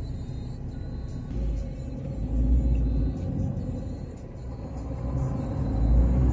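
Car driving in city traffic, heard from inside the cabin: a low engine and road rumble that swells twice.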